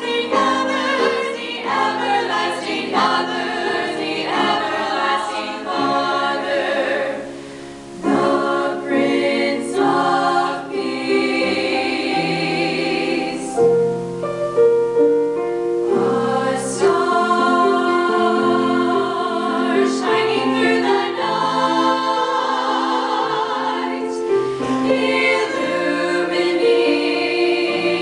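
A women's vocal ensemble singing in harmony, several voice parts holding and moving through sustained notes, with a short break between phrases about eight seconds in.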